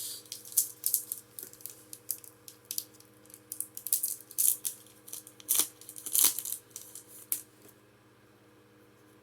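Foil Pokémon booster pack wrappers crinkling and rustling in the hands as they are picked up and opened, in quick irregular crackles that stop about three-quarters of the way through.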